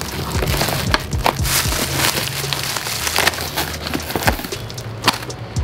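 Plastic bubble wrap and packing tape being pulled and torn by hand, giving a run of irregular sharp crackles and snaps.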